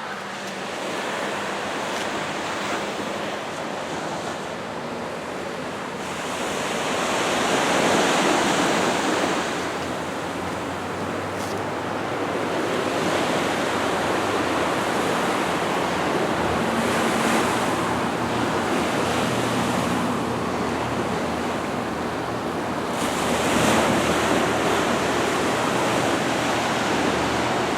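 Small waves on a calm sea washing onto the beach, a steady rush of surf that swells up twice, about a third of the way in and again near the end.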